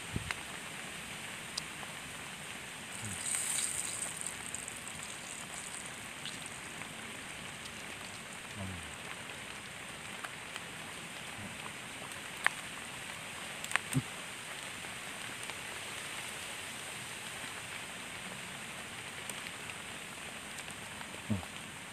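Steady rain falling, an even hiss, with a few sharp clicks a little past the middle.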